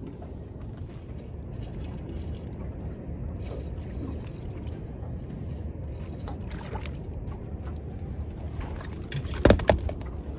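Steady low outdoor rumble, with a quick cluster of sharp knocks near the end.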